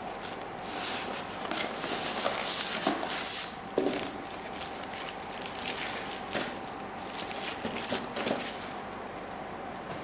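Packaging being handled: rustling and crinkling, then a few sharp knocks, with a faint steady tone underneath.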